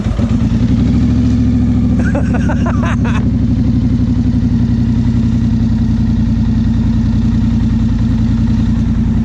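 Polaris Sportsman 850 High Lifter ATV with a Big Gun exhaust, its parallel-twin engine catching on a warm start and settling into a steady idle.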